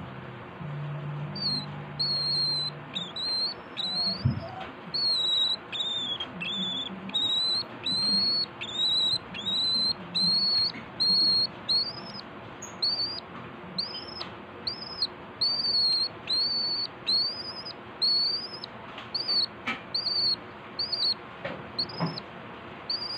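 Hand-fed pet bird giving short, high, whistled calls over and over, about one to two a second, starting about a second in.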